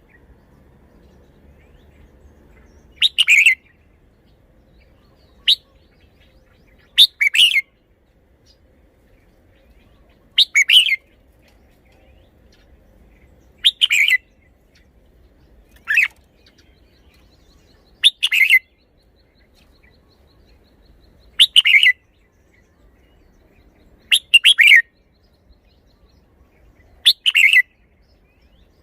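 Red-whiskered bulbul singing: short, loud, whistled phrases of about half a second each, repeated about every three seconds, ten times.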